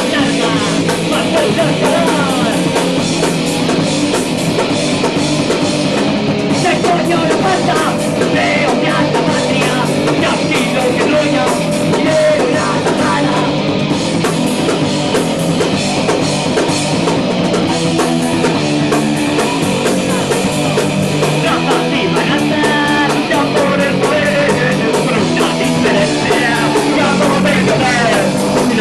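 Live rock band playing a song, with electric guitar and drum kit going steadily.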